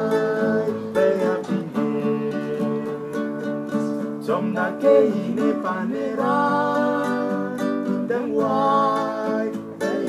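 A man singing long, held notes while strumming a steel-string acoustic guitar.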